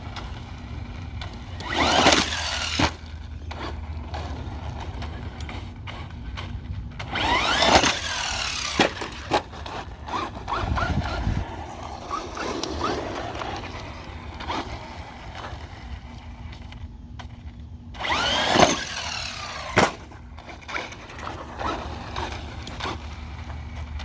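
Traxxas Rustler 4x4 VXL RC truck's brushless motor whining up in pitch in about three short full-throttle bursts, each followed by sharp knocks from the truck landing or crashing after a jump.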